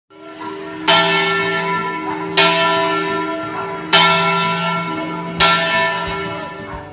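A large bell tolling: four strikes about a second and a half apart, each ringing on and overlapping the next.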